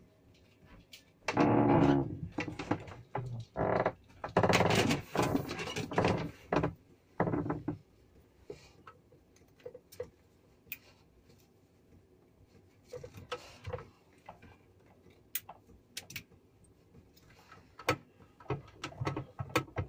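Hands handling solar cables and their plug connectors at a charge controller: rustling and scraping, loudest in the first seven seconds or so, then a scatter of small clicks and knocks.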